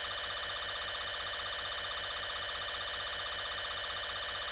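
Steady electronic alarm-like drone made of several held tones with a fast, even flutter, holding the same level throughout.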